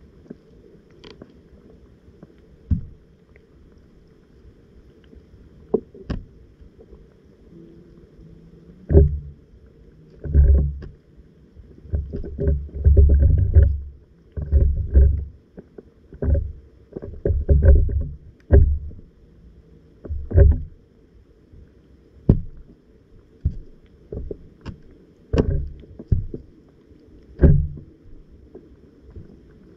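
Muffled, irregular low thuds and knocks with water rumbling, heard through a camera submerged in the water; the knocks come thickest in the middle stretch.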